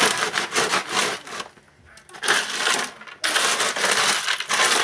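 Broken ice cubes clattering and crunching as hands push and pack them down around a metal ice-cream canister inside a bucket, in dense rattling bursts with a brief pause about a second and a half in.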